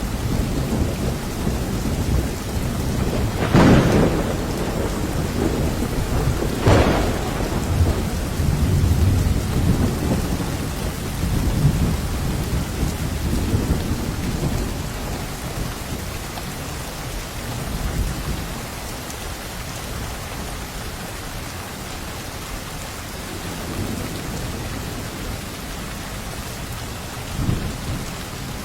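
Thunderstorm: steady rain with low rolling thunder, and two sharp thunder cracks a few seconds apart in the first quarter. The rumbling eases off in the second half, leaving mostly steady rain.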